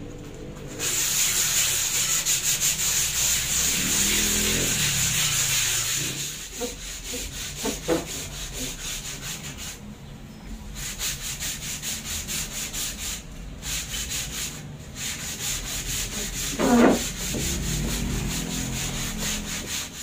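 Sandpaper rubbed by hand in rapid back-and-forth strokes over a wooden tabletop, stripping off the old paint and clear coat. The strokes stop briefly a few times. A short lower-pitched sound comes through about four seconds in, and a louder one near the end.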